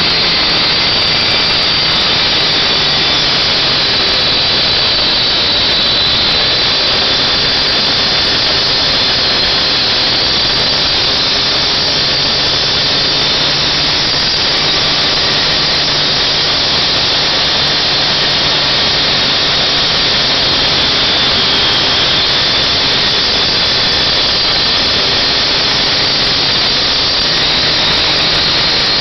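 Stihl two-stroke cut-off saw running at full throttle, its Extractor diamond blade cutting steadily through sheet-metal roofing over plywood. A loud, continuous, high-pitched grinding sits over the engine's steady drone.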